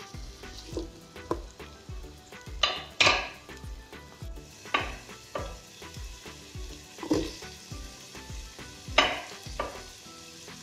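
Chopped onion, carrots and potatoes sizzling as they fry in oil in a pot, stirred with a wooden spoon that scrapes against the pot again and again, loudest about three seconds in and near the nine-second mark.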